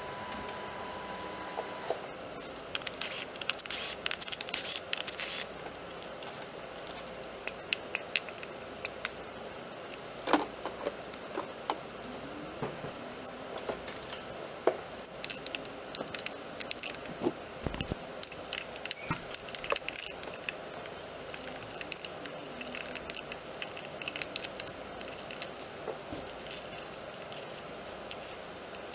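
Hand tools and loose metal parts clinking, rattling and scraping while the top of a Saab B207E four-cylinder engine is worked on. There is a sharper clack about ten seconds in and a dull thump around eighteen seconds.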